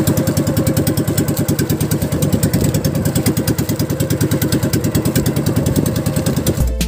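Small boat engine running steadily with a fast, even pulse, close by over the water. Music starts just before the end.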